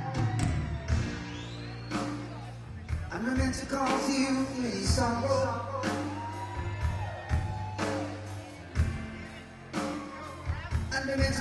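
A live rock band playing a slow ballad: a lead voice singing over electric guitar, sustained bass notes and keyboards, with drum hits about once a second.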